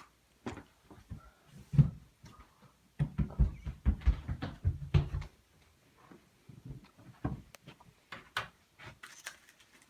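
Handling noises: scattered clicks and knocks with a sharp knock near two seconds in, then a dense run of low thumps and rustling from about three to five seconds in, as pictures and their container are rummaged through.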